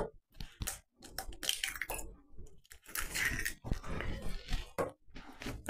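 Fingers working a crumbly scone mix with blueberries in a glass mixing bowl, giving soft, irregular squishing and scrunching.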